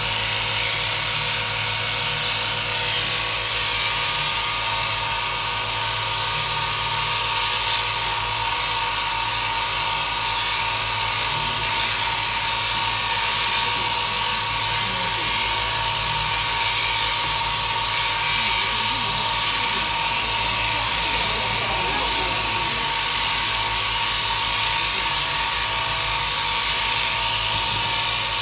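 Electric sheep-shearing handpiece, driven from an overhead shearing plant, running steadily as it cuts through a sheep's fleece: a constant mechanical whine over a loud high hiss.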